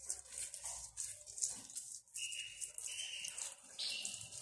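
Hands rubbing a sugar-and-oil scrub over the skin, a soft gritty scratching made of many short strokes. A few faint high chirps come in about halfway through.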